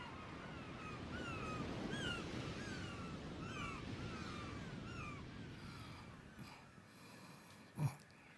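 Birds chirping, short curved calls repeated about twice a second over a steady outdoor rumble that fades out, then a single short thump near the end.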